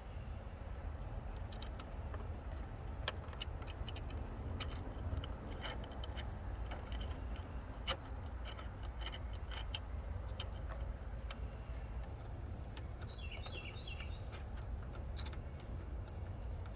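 Light metallic clicks and clinks of steel bolts and strut clamp parts being handled and fitted, over a steady low rumble. A bird chirps a few times near the end.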